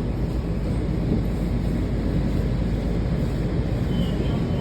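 Washington Metro train running along the line, a steady low rumble heard from inside the car.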